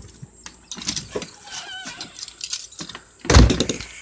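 A bunch of keys jangling and clicking in hand, with a brief squeak about a second and a half in and one loud thump near the end.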